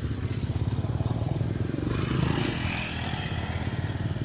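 A small engine running steadily with a fast, even low pulsing. About two seconds in, a brief hissing swell rises over it.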